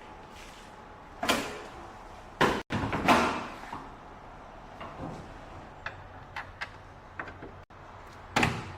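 Four loud clunks, each with a short scraping tail, about a second in, twice near the three-second mark and again near the end, with a few light clicks between them.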